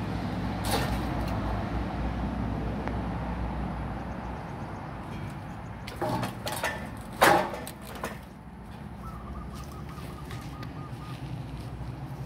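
A few knocks and rattles of loose metal pipes and scrap as the dogs move among them, about six to seven seconds in, over a low rumble that fades during the first few seconds. A short rapid ticking trill comes near nine seconds in.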